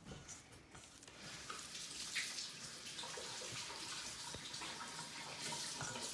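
Water from a tap running steadily into a sink, starting about a second in.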